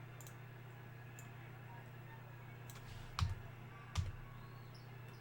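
Scattered faint clicks of a computer mouse and keyboard, with two duller knocks about three and four seconds in, over a steady low electrical hum.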